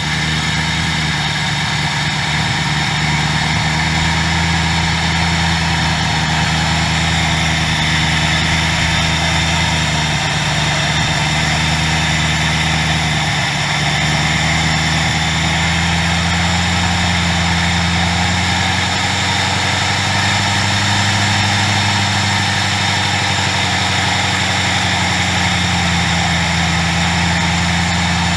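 Ford 4.6-litre DOHC four-valve V8 idling steadily, its idle speed wavering slightly now and then, running on freshly fitted ignition coil packs.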